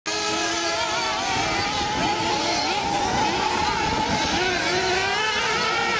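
Small nitro glow engines of 1/8-scale off-road RC buggies running at high revs, more than one at once. Their high-pitched notes overlap and rise and fall as the buggies accelerate and brake around the track.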